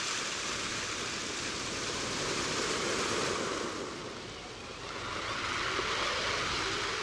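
Ambient sound effect of wind over an icy sea: a steady rushing noise that dips briefly about four seconds in, then swells again.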